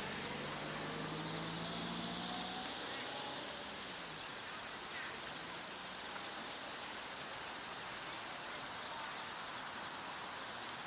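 Steady outdoor background noise, with a low engine hum during the first few seconds that then fades out.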